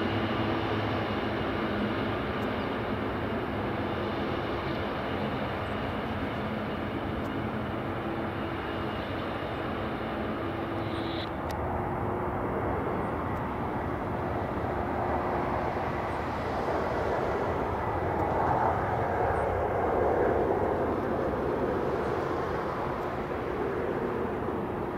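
Jet airliner engines at a runway. First a Boeing 777 rolling out after landing, a steady whine over a rushing noise, which cuts off abruptly about eleven seconds in. Then a second twin-engine airliner on final approach and touchdown, its rushing engine and air noise swelling to its loudest a few seconds before the end.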